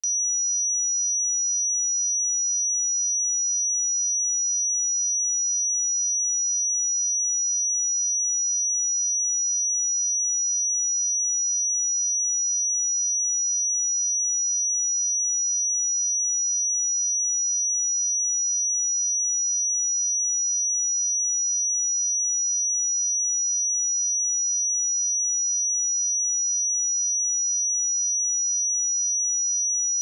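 A steady 5851 Hz sine-wave test tone: a single high-pitched pure tone held at constant pitch and level.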